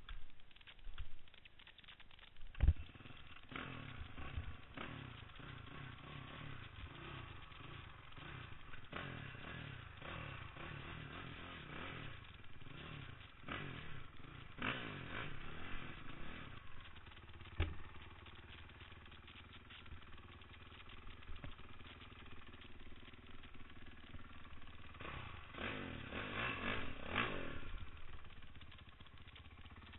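Dirt bike engine revving up and down in repeated bursts while the bike is stuck against a rock on a steep dirt climb, loudest near the end. Two sharp knocks, the first a few seconds in and the second a little past halfway, as the bike strikes the rock.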